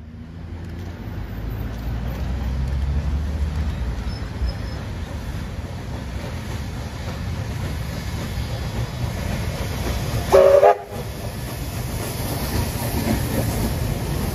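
Train running past with a steady noise, and one short horn blast about ten seconds in, the loudest sound.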